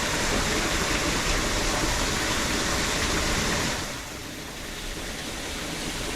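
Steady rushing noise with no clear pitch, which drops and turns duller about four seconds in.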